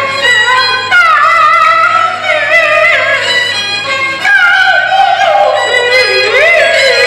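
Peking opera accompaniment led by the jinghu fiddle, playing a melody that slides and wavers between notes, with no break.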